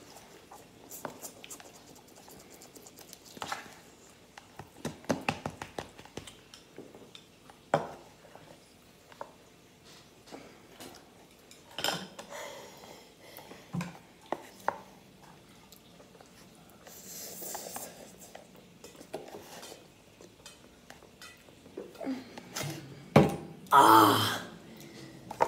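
Scattered clicks and scrapes of chopsticks and a fork against a plate and a paper ramen cup while noodles are eaten. Near the end comes a loud, short vocal cry.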